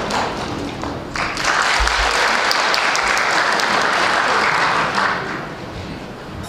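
Audience applauding. The clapping grows louder about a second in and dies down near the end.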